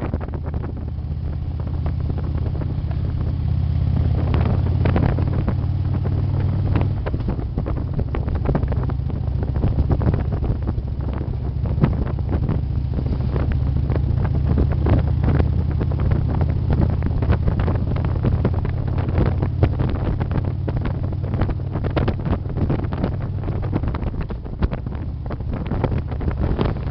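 Harley-Davidson touring motorcycle's V-twin engine running steadily at cruising speed, heard from the rider's seat, with wind buffeting the microphone.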